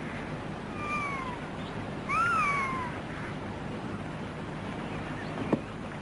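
A cat meowing twice: a short falling call, then a louder one that rises and falls. A sharp knock near the end.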